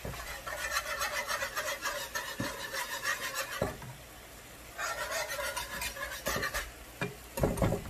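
Wire whisk beating a creamy butter sauce in a ceramic-coated skillet: rapid scraping strokes against the pan in two bouts with a short pause between, then a few louder low knocks near the end.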